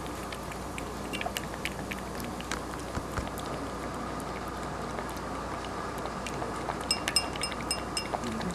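Cat lapping yogurt from a bowl: a string of soft, irregular wet clicks from its tongue, with a quicker run of sharp ticks near the end.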